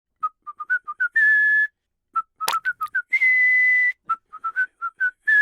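A whistled tune: runs of short quick notes, each phrase ending on a longer held higher note, three phrases in all. A sharp click comes about two and a half seconds in.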